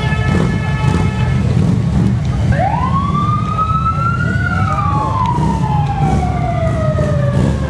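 Low steady rumble of many heavy touring motorcycles and trikes riding slowly in procession. A held horn blast stops about a second and a half in, and from about two and a half seconds a siren winds up in pitch and then slowly falls away.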